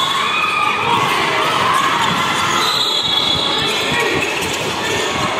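Basketball game sounds echoing in a large gym: a ball dribbled and bouncing on the court, with indistinct spectator voices in the background.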